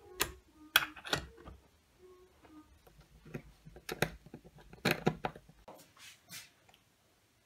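Irregular metallic clicks and knocks of hand tools working nuts, bolts and screws, with a few louder clinks among them.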